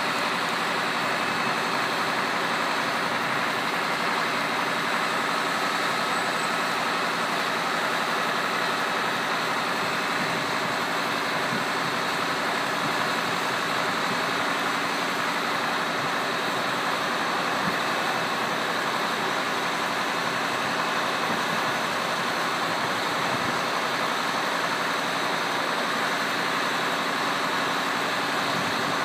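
Fire engine's diesel engine running steadily, a constant hum with several held tones that does not change.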